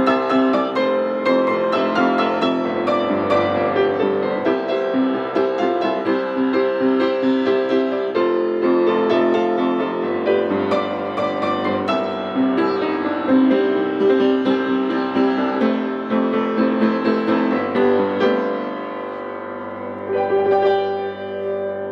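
Hellas upright piano, about forty years old, played with both hands: continuous chords and melody. It turns softer for a couple of seconds near the end, then picks up again.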